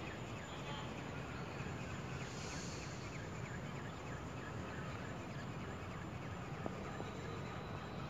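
Outdoor background noise: a steady low rumble with many faint short chirps and ticks, and a brief hiss about two and a half seconds in.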